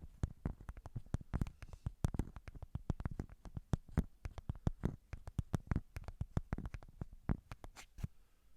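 Rapid, irregular tapping: many sharp taps a second, some louder than others, stopping shortly before the end.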